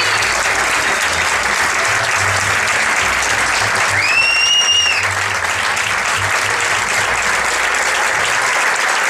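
Theatre audience applauding steadily during a curtain call, with one loud whistle about four seconds in that rises, holds for about a second and drops away. Music with a low bass line plays underneath and fades out near the end.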